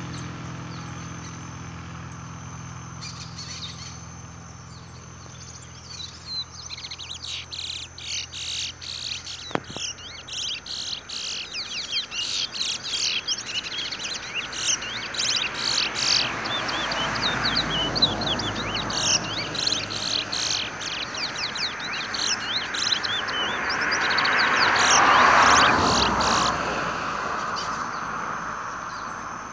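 Two caged towa-towa finches singing against each other in quick bursts of high twittering chirps, growing dense from about seven seconds in. A low hum fades out in the first ten seconds, and a broad rushing noise swells twice, loudest about 25 seconds in.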